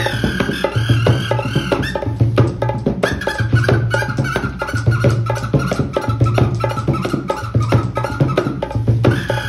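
Traditional Indian folk music: a hand drum keeps a steady beat, with deep strokes about once a second among quick light taps, under a high, wavering held tone that is strongest in the first two seconds.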